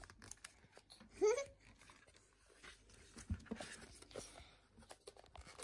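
Paper and cardboard packaging rustling and crinkling with light clicks as a watch band is drawn out of its card holder. A short voiced exclamation comes about a second in.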